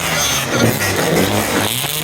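Car engines with loud exhausts running and revving, the pitch wavering up and down.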